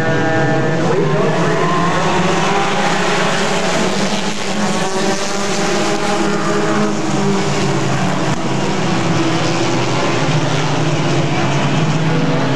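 A pack of mini stock race cars running at speed, many engines sounding together with their pitches rising and falling.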